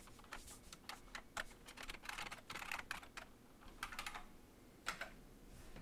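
Faint typing on a computer keyboard: a run of irregular key clicks, then a few more after a short pause.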